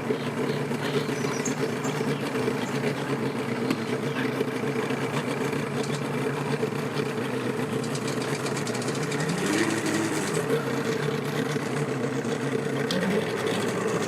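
Engines idling steadily, with one revving up and back down about ten seconds in.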